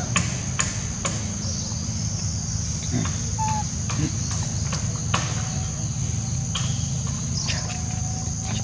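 Steady high-pitched insect drone over a low rumble, with scattered sharp clicks and one brief squeak about three and a half seconds in.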